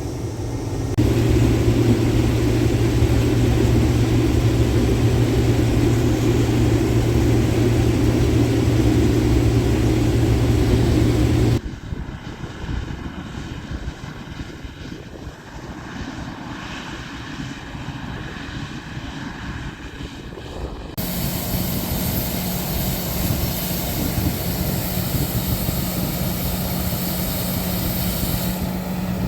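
Large diesel engines of harvest machinery running steadily, in three cut-together shots. The first is a loud drone with a strong low hum. About a third of the way in it drops to a quieter rumble, and about two-thirds in it changes to a steady, somewhat higher hum.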